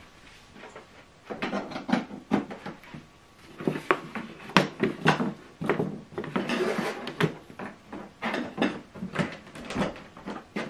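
Irregular clicks, knocks and scrapes of handling: a compact JBL Bar 2.0 soundbar being lifted and set back down on its cardboard box, its cables being moved.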